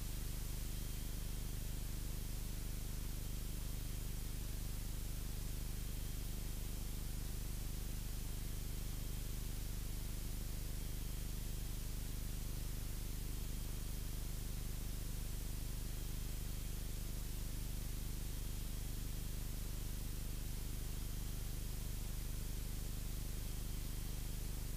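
Cessna 172 piston engine and propeller droning steadily at cruise power, heard faintly under an even hiss as through the aircraft's intercom audio feed.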